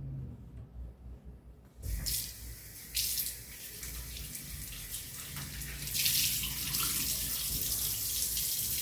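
Kitchen sink tap turned on about two seconds in, water splashing into the sink and running steadily, flowing harder from about six seconds in.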